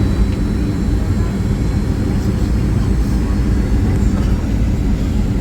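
Steady jet airliner cabin noise in flight: an even, low rumble and rush of engines and airflow that holds constant.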